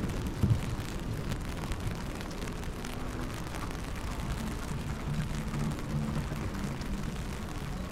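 Rainy city street ambience: a steady low rumble of traffic over wet pavement, with a brief louder thump about half a second in.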